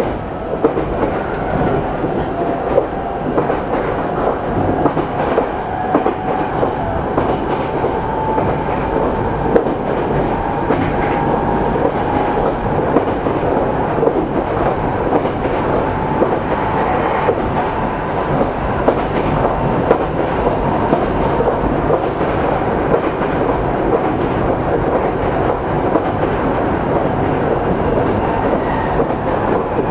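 Meitetsu 300-series electric train (set 317F) heard from on board, running steadily along the line. The wheels on the rails give a continuous rumble with scattered clicks and a faint steady tone above it.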